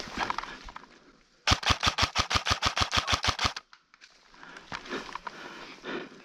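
Airsoft gun firing one full-auto burst of about twenty shots, roughly nine a second, lasting about two seconds, starting about a second and a half in.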